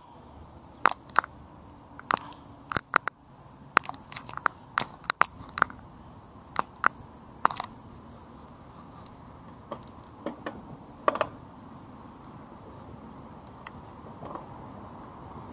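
Cannondale Prophet mountain bike rolling over paving: irregular sharp clicks and rattles, about twenty of them, over a steady hiss of tyres and wind. The clicks stop a few seconds before the end, leaving only the steady hiss.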